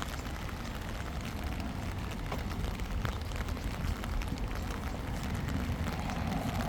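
Low steady rumble of wind on the microphone, with scattered faint ticks and crackles.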